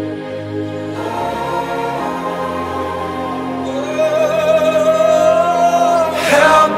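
Background music: a slow song with a voice holding long sung notes over steady sustained chords, swelling louder near the end.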